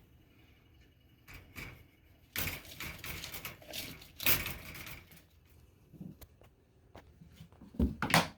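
A small pet monkey handling and knocking about toys: scattered clicks and rustling, with a few louder knocks near the end.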